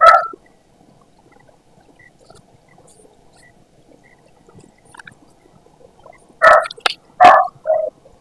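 A dog barking: one short bark at the start, then a few more barks close together near the end, over the faint rustle of paper sheets being handled.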